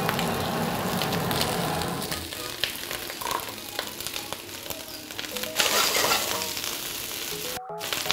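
Boiled pishori rice and chopped vegetables sizzling in oil in a hot steel wok as they are stirred in for vegetable fried rice. The sizzle is loudest for the first two seconds, eases off, then swells again a few seconds later.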